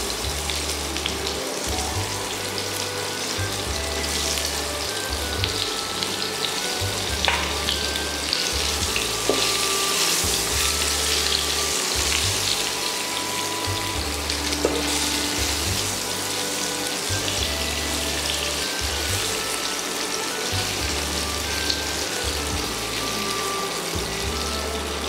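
Peeled pointed gourds (potol) shallow-frying in hot mustard oil in a nonstick wok: a steady sizzle, with a few light clicks from a spatula turning them.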